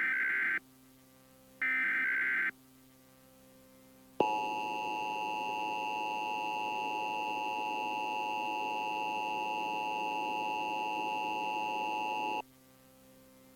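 Emergency Alert System activation over broadcast radio: two short bursts of the SAME header's warbling data tones about a second apart, then the steady two-tone EAS attention signal for about eight seconds, cutting off near the end. It announces the tornado warning that follows.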